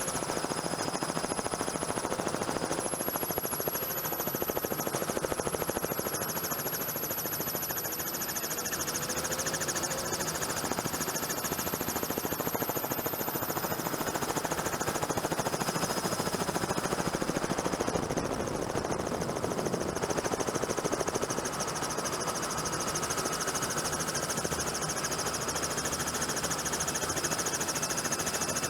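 Helicopter rotor and turbine engine running steadily: a fast, even beating, with a thin high whine that drifts upward in pitch through the first half.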